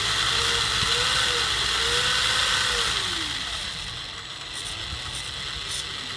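Homemade RC truck's small electric motor and spur-gear drive running, a steady whirr as it turns the driveshafts and axles. The pitch rises and falls twice as the speed changes, then the sound eases off a little after about three seconds.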